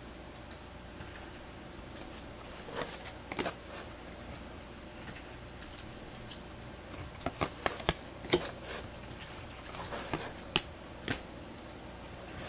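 2006-07 Upper Deck Power Play hockey cards flipped through by hand, each card slid off the stack to the back, making short flicks and taps of card stock that come singly and in quick clusters.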